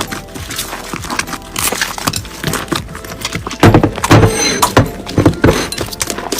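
Slime being squeezed and pressed by hand, a rapid run of sticky crackles and pops, loudest a little past the middle.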